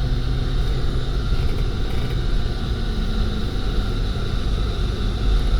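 Steady low rumble of a vehicle's engine and road noise, running evenly.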